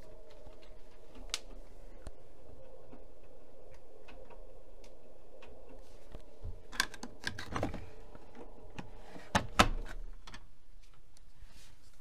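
Privileg Dynamic 6610 CN front-loading washing machine in its wash cycle: the drum motor hums steadily while the drum turns. In the second half the tumbling laundry sets off a run of clicks and knocks with dull thuds, the loudest near the end. The motor hum then stops.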